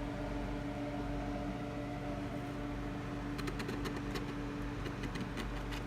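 Steady background hum with a few held tones, like a running appliance or fan in a small room. From about three and a half seconds in, a scatter of light clicks and taps joins it.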